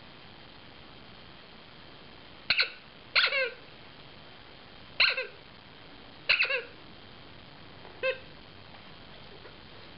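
Dog chewing a squeaky toy: short, high, pitched squeaks from the squeaker, some coming in quick runs of two or three, every second or two, the last one fainter.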